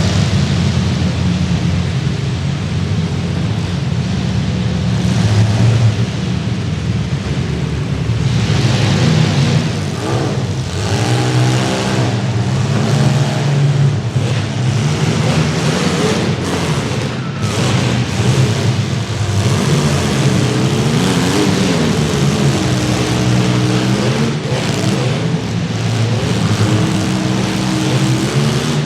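Several compact demolition derby cars running at once, their engines revving with the pitch repeatedly rising and falling. A few sharp bangs stand out against the engines.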